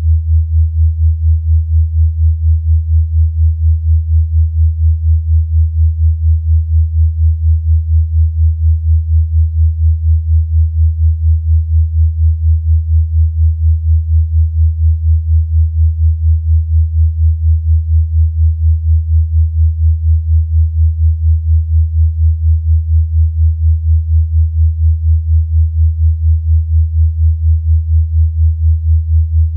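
Synthesized low sine tone, steady in pitch, pulsing evenly in loudness several times a second.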